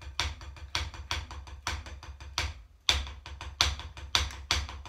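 Single drumstick striking a rubber practice pad in a quick run of strokes, about five a second, with some strokes accented louder. There is a brief break near the middle, then the strokes start again with a strong accent.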